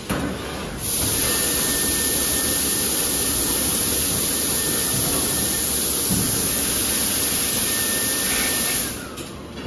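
A steady rush of air on a plastic vacuum thermoforming line, hissing with a strong high edge for about eight seconds, then cutting off sharply. A faint whine under it drops in pitch as the air stops.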